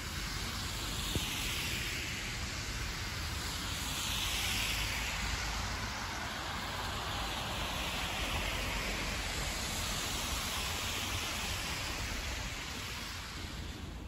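Steady hiss of city street traffic, with cars passing one after another on the road.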